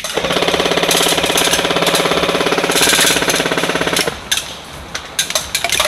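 Airsoft electric gun firing one long full-auto burst, a rapid even rattle with a motor whine, for about four seconds before it stops suddenly. A few sharp clicks follow near the end.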